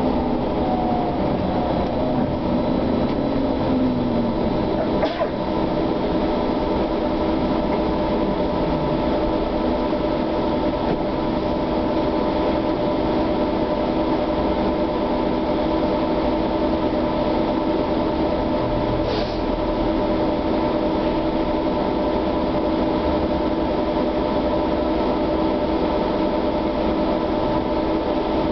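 Cabin of a SOR TN12 trolleybus on the move: steady rolling and road rumble under a constant electrical whine from the drive equipment. A whine rises in pitch in the first few seconds, and there are two brief clicks, about five seconds in and again past the middle.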